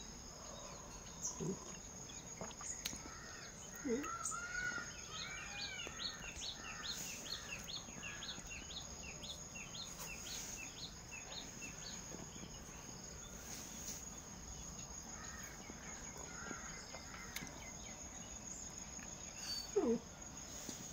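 Outdoor ambience of a steady high insect drone, with a bird calling in rapid series of short chirps and other birds warbling. A few brief low sounds stand out, the loudest near the end.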